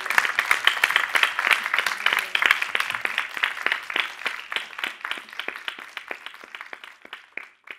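Audience applauding: dense clapping that thins out to scattered single claps near the end.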